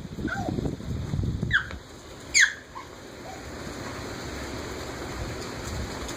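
Light rain hissing steadily outdoors, with two short, high squeaks that fall sharply in pitch about one and a half and two and a half seconds in, and a low rumble at the start.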